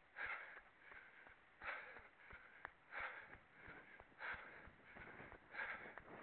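A runner breathing hard in a steady rhythm: five strong breaths evenly spaced, with softer breaths between, and faint footfalls under them.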